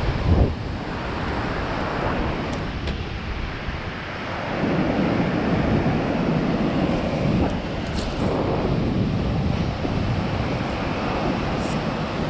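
Ocean surf washing onto the beach, mixed with wind rumbling on the microphone; the noise swells louder about a third of the way in.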